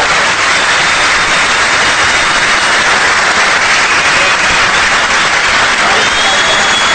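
A large hall audience applauding steadily.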